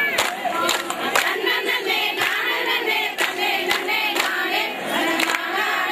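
A group of women singing a folk song together, with sharp hand claps every half second to a second keeping time for a circle clapping dance.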